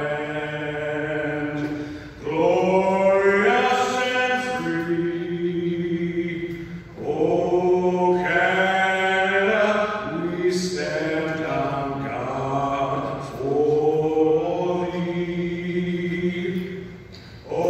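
A man singing a national anthem solo and unaccompanied into a microphone over an arena's PA, with long held notes in phrases of about five seconds and short breaks between them.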